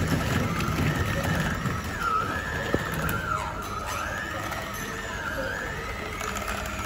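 Electric hand mixer running, its beaters churning cream cheese in a stainless-steel bowl, under background music whose melody wavers up and down.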